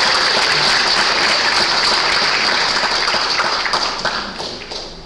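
A crowd applauding steadily, then dying away over the last second or so to a few scattered claps.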